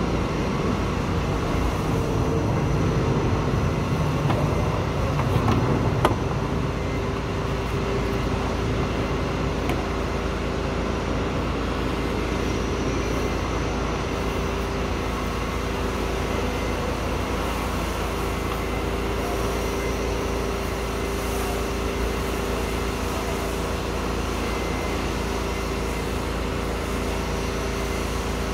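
Propane roofing torch burning steadily as it heats torch-on bitumen felt. The flame noise is a little louder for the first six seconds or so, which end in a sharp click.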